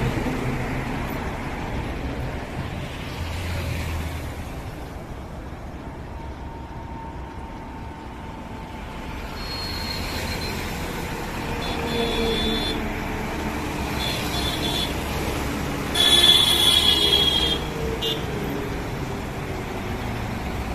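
Highway traffic: goods trucks, cars and motorcycles passing with a steady engine and tyre noise. Short vehicle horn toots sound several times in the second half, the loudest lasting over a second about 16 seconds in.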